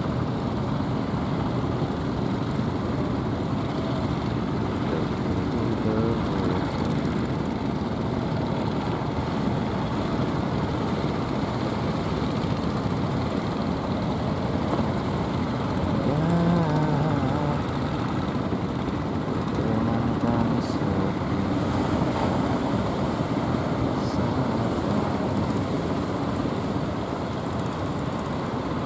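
Engines of several motorized outrigger fishing boats running steadily under way, a dense low mechanical drone.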